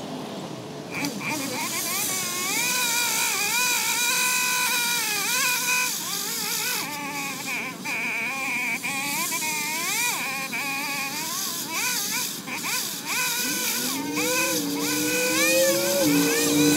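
Small gasoline engine of a pole saw revving up and down over and over as it cuts tree branches. Near the end a second, lower-pitched steady engine note joins in.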